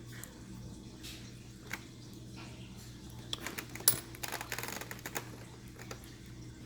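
Small, light clicks and taps of tools and tiny parts on a smartwatch's open case as an internal piece is worked and pressed back into place, with a quick run of clicks in the middle, over a faint steady low hum.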